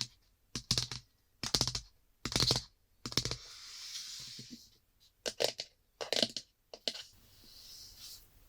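Hands handling the phone's box and packaging: a string of sharp taps and clicks, with two brief soft rustling or sliding sounds, one in the middle and one near the end.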